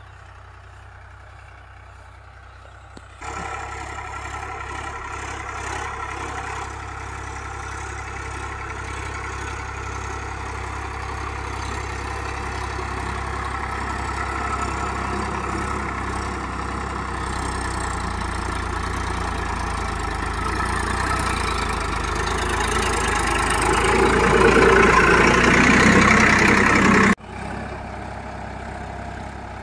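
Sonalika DI 47 tractor's diesel engine running steadily as it pulls a nine-tine cultivator through tilled soil. It jumps louder about three seconds in, grows steadily louder as the tractor comes close, and drops away suddenly near the end.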